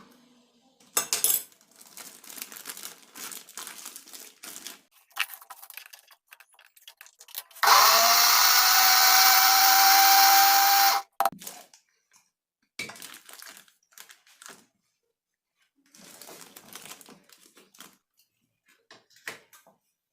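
Moulinex electric mini chopper running for about three seconds, its motor pitch rising as it spins up, grinding a thick paste of garlic, honey and olive oil. Before and after it, scattered clicks and knocks.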